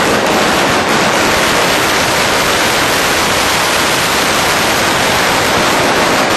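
A long string of firecrackers going off in rapid succession, the bangs so close together that they run into one continuous loud crackle.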